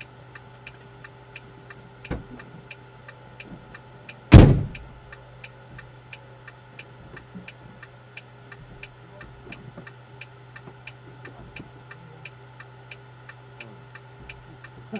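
Steady low hum of the stopped truck's engine idling, with a rapid even ticking of about three ticks a second. A single sharp, loud bang about four seconds in is the loudest sound.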